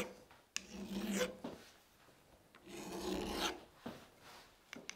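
Hand file rasping across the edge of a steel ball-peen hammer head's strike face to put a small chamfer on it: two slow strokes, each about a second long, with a few light clicks between them.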